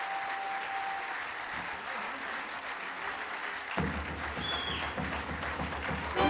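Audience applauding steadily. About four seconds in, a low steady droning tone from the band comes in under the clapping.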